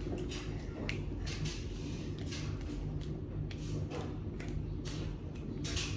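Faint scattered clicks and rustles, a few every second, over a low steady hum.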